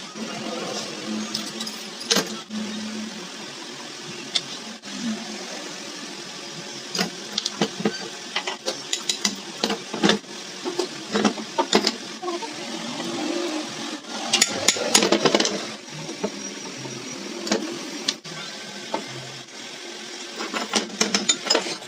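Hand work on a ceiling fan's stator coil: irregular clicks, taps and scraping of wire and parts being handled, busiest about two thirds of the way through, over a faint steady hum.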